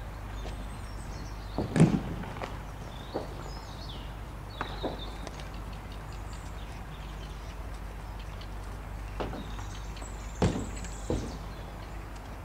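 Scattered dull thuds of a trotting horse's hooves on a soft arena surface, the loudest about two seconds in, over a steady low wind rumble. Faint bird chirps are heard now and then.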